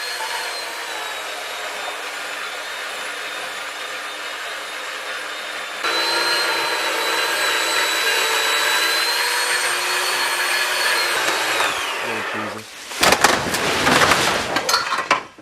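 Chainsaw running at full throttle, a steady high engine whine that gets louder about six seconds in and winds down in pitch near the twelve-second mark. It is followed by a couple of seconds of loud cracking and crashing noise.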